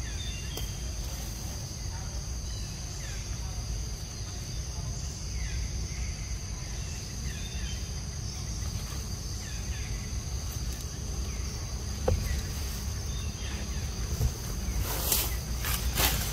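Steady high-pitched drone of insects calling in the undergrowth, with faint short falling chirps and a low rumble underneath. Near the end, brief bursts of rustling through leaves.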